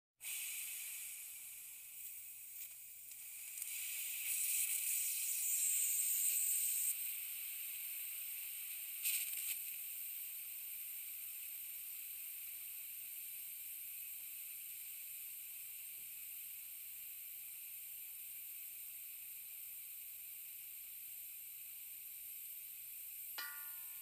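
Compressed air slowly leaking from an air tank: a steady high hiss. It swells for a few seconds about four seconds in and surges briefly about nine seconds in, then holds steady.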